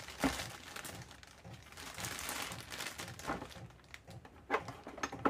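Packaging rustling and crinkling as small router accessories are handled, with a few light knocks of parts being set down or picked up in the second half.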